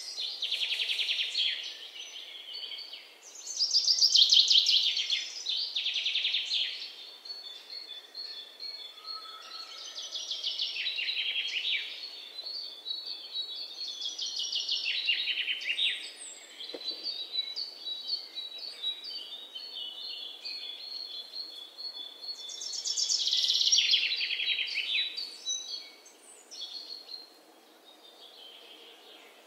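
Birds chirping in repeated rapid high trills, each burst a second or two long, over a faint steady hiss.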